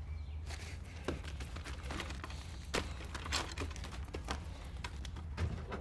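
Scattered light knocks and rustles over a low steady hum.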